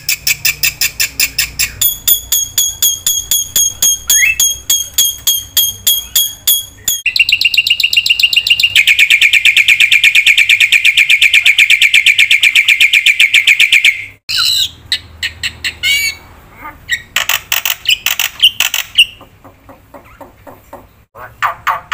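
Black-winged myna (jalak putih) singing loudly: quick series of repeated high chirps. In the middle comes a long run of very fast rattling notes, which breaks off abruptly before the chirping resumes.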